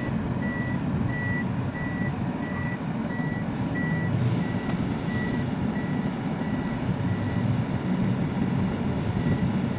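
Electronic vehicle warning beeper sounding a steady train of short high beeps, a bit under two a second, over the low rumble of a moving vehicle and street traffic.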